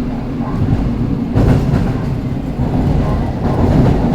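Seoul Metro Line 8 subway train running between stations, heard from inside the carriage: a steady low rumble of wheels on track that grows louder about a second and a half in.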